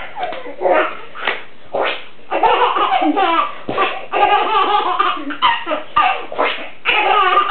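Baby laughing in bursts: a few short laughs in the first two seconds, then a long run of belly laughs from about two and a half seconds in.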